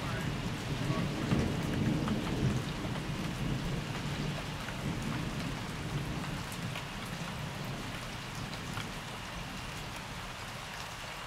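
Thunder rumbling low, loudest in the first few seconds and then slowly fading, over steady rain pattering.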